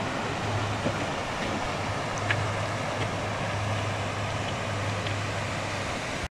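Steady rushing outdoor noise with a low rumble that comes and goes, and a few faint ticks.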